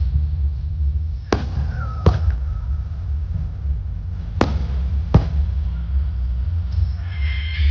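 Fireworks shells bursting overhead: four sharp bangs in two pairs, the first pair at about one and a half and two seconds in and the second at about four and a half and five seconds in, over a steady low rumble. Music comes in near the end.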